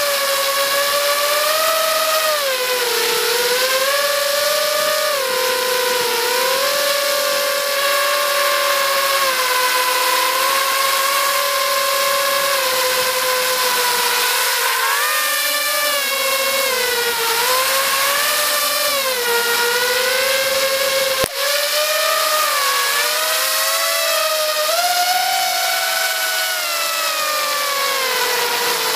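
FPV quadcopter's brushless motors and propellers whining, heard from its own on-board camera, the pitch rising and falling with the throttle as it flies. A brief click breaks the sound about three quarters of the way through.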